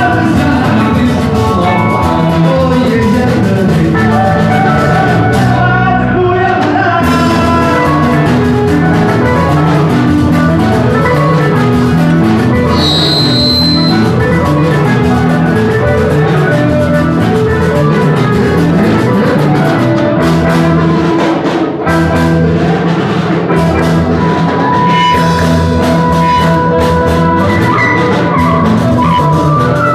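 Live band music, loud and continuous, with electric guitar and a drum kit keeping a steady beat.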